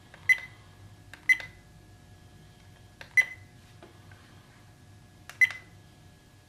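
Ltl Acorn 6210MG trail camera's keypad: four short, high beeps, each with the click of a button press, as its menu is stepped through and exited. The first two come about a second apart, the last two about two seconds apart.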